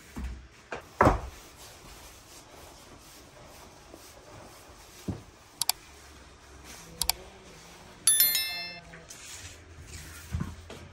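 Dull thumps of a wooden rolling pin and a sheet of dough being handled on a table, the loudest about a second in. Midway come two pairs of mouse-click sounds followed by a bright bell chime: the sound effect of a like-and-subscribe animation.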